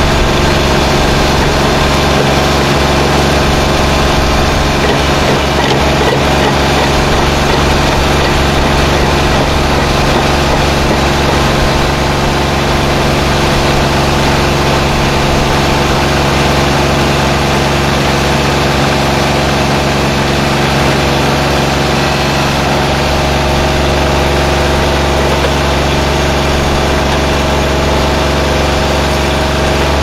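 MAGNATRAC MH8500 track loader backhoe's engine running steadily while it drives a hydraulic post-hole auger boring into soil.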